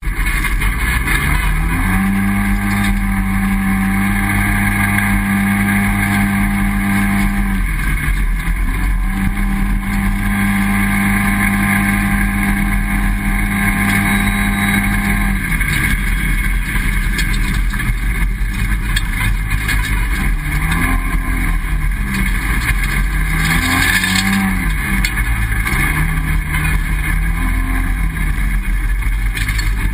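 Polaris RZR side-by-side engine running at a steady pitch while driving over a gravel wash, with a brief drop in pitch about eight seconds in. In the second half the engine speeds up and eases off again and again. A steady noise of tyres on gravel and wind runs throughout.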